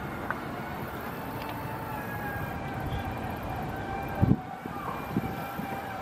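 Steady outdoor background noise with a faint, steady high whine running through it, and a brief pair of low thumps about four seconds in.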